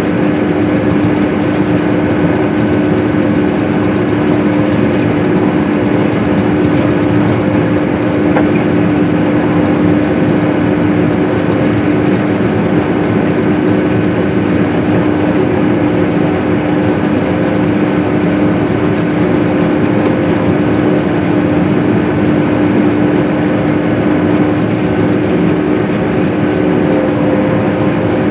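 Case IH swather (windrower) running steadily while cutting hay: a loud, even engine drone with a constant hum that does not change.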